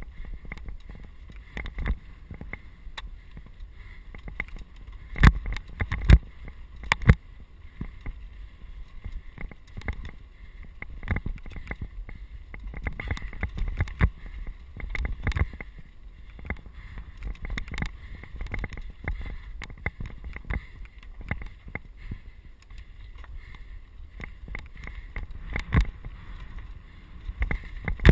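Mountain bike rolling fast over rocky dirt singletrack: a steady low rumble of tyres on stones and wind on the camera, broken by frequent sharp knocks and rattles as the bike hits rocks. The three loudest knocks come one after another about five to seven seconds in, with another near the end.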